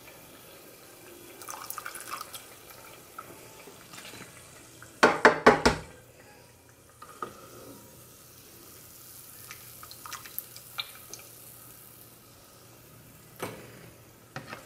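Donuts deep-frying in a pot of hot oil, a soft steady bubbling with scattered small crackles and ticks. About five seconds in, a quick run of knocks, the slotted spoon against the pot.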